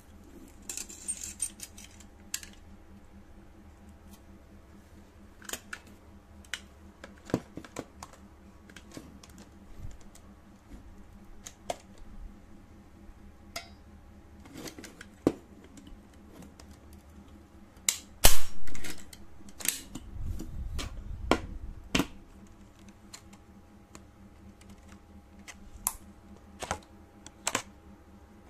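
Scattered clicks and knocks from handling an INGCO 3-in-1 manual staple gun and its clear plastic blister packaging. About two-thirds of the way through there is one loud knock, followed by a few seconds of rustling and clicking.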